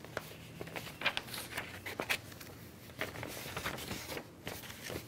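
Sheets of paper being handled, giving a series of short rustles and crackles.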